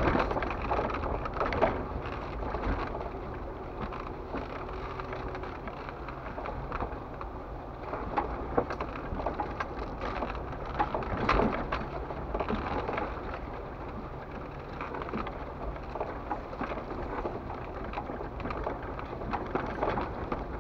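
Inside the cab of a 4x4 crawling over a rocky, wet trail: tyres crunching over rock and gravel, with scattered knocks and rattles and a faint low engine hum underneath.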